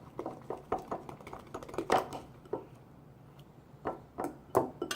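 Hands working sticky, watery clear slime in a bowl as a little borax is added: scattered short squelches and taps, with a quiet pause in the middle.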